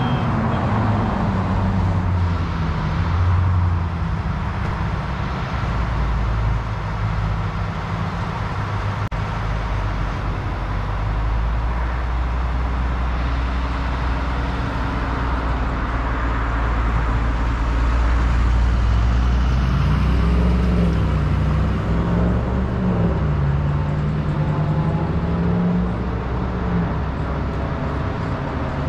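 Motor vehicle engines running steadily with a low rumble; for several seconds past the middle one engine's note wavers up and down in pitch as it is revved gently.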